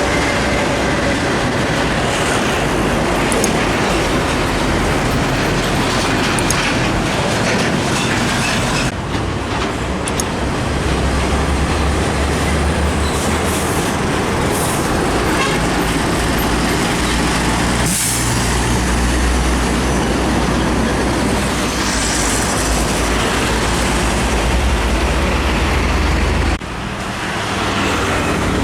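Heavy trucks running on a highway: a steady low engine rumble with road and tyre noise, broken by abrupt cuts about a third of the way in and again near the end.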